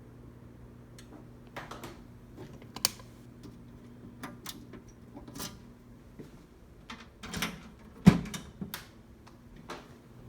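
Irregular clicks and taps of buttons and switches being worked on a fire alarm control panel, the loudest a sharp knock about eight seconds in. A faint low hum stops about six seconds in.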